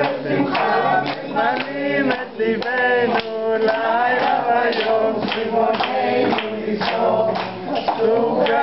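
A family group of adults and children singing a Hanukkah song together, with hand clapping keeping the beat.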